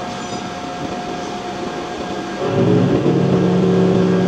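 Steady factory machinery hum with a faint held tone, joined about halfway through by a louder sustained sound of a few steady pitches that step from one to another like a simple melody.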